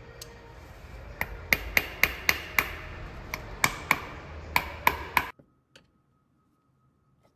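Bestech Sledgehammer liner-lock folding knife being snapped open and shut, about a dozen sharp, ringing metal clicks in quick runs, stopping abruptly a little past five seconds in.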